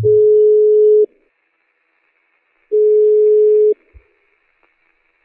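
Telephone ringback tone heard down the line while a call rings unanswered: two one-second beeps of a single steady tone, with faint line hiss between them.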